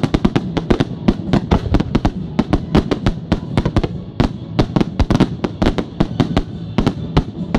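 Fireworks display in a fast barrage: a rapid string of sharp bangs and crackles, several a second, with no let-up.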